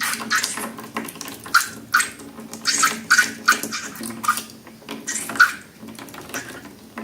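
Wet slime being worked by hand: irregular sticky squelches and crackles, two or three a second, over a faint steady hum. It stops abruptly at the end.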